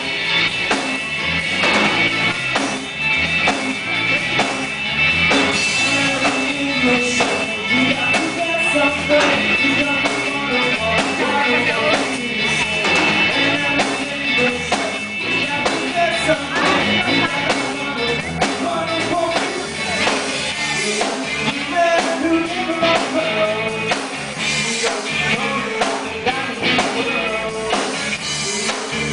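Live rock band playing loudly, with a singer over guitar and a steady drum beat.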